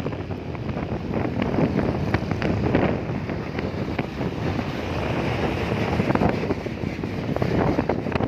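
Wind buffeting the microphone over rumbling traffic noise, with scattered short clicks and no horn melody.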